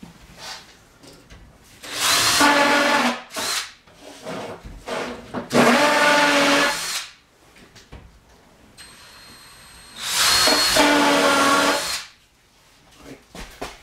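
Cordless impact drill driving 2-inch self-drilling cabinet screws through the back of a cabinet into the wall studs. There are three runs of one to two seconds each, and the motor's whine rises as each one starts.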